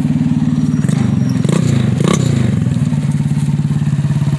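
Carter Talon 150 buggy's small single-cylinder engine running steadily, with a brief rise and fall in pitch about a second in and a couple of knocks around the middle.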